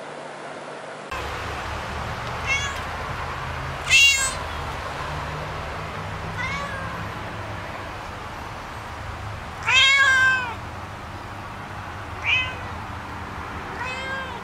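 Domestic cats meowing over and over while begging for a lickable treat held up above them, about six meows in all. The loudest and longest meow comes about ten seconds in.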